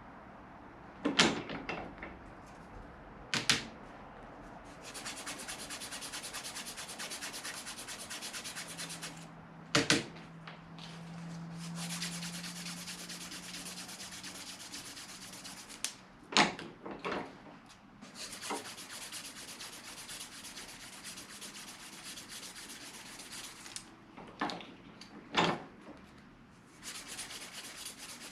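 Strip of sandpaper pulled rapidly back and forth, shoe-shine style, around a golf club ferrule to turn it down by hand: a fast, even rasping in long runs of several seconds. Between the runs come several sharp knocks.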